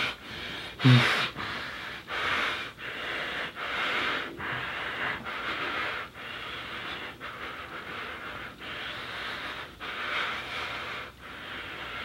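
A man gagged with a cloth breathes hard and fast through the gag, with a brief muffled moan about a second in.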